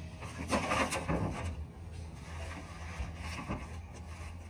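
Rubbing, scraping and rustling of parts and plastic packaging being handled on a pickup truck's front end, loudest about a second in, with a few light knocks later and a low steady hum underneath.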